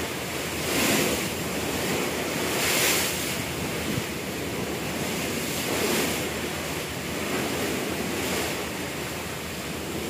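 Sea water rushing past a passenger ship's hull under way, with wind buffeting the microphone. The rush swells and eases every two or three seconds as waves pass.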